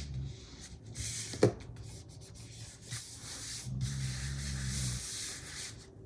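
Paper and stickers being rubbed and handled on a desk: two stretches of scratchy rubbing, with a sharp tap about a second and a half in.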